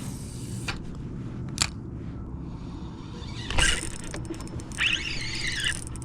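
Fishing rod and reel being worked on a boat: a sharp click, a quick swish a little past halfway, then about a second of fast whirring from the reel near the end, over a steady low hum.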